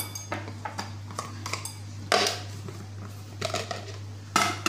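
Metal spoon clinking and knocking against kitchenware while spices are handled, a string of short sharp clinks, a few ringing briefly, with the strongest about two seconds in and near the end. A steady low hum runs underneath.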